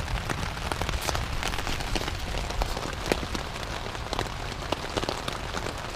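Light rain falling steadily as a storm dies down, with many separate drops tapping close by.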